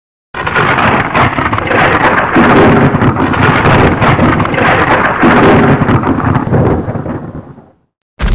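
Loud, continuous rushing noise with deep rumbling swells about two and five seconds in, fading away near the end.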